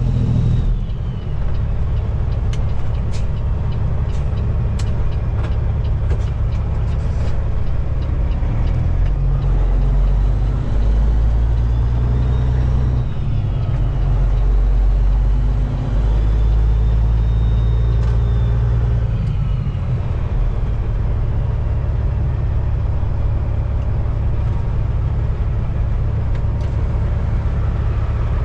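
Cat C15 diesel engine of a Peterbilt 389 semi truck running while driving, a deep steady rumble whose pitch and strength change in steps several times.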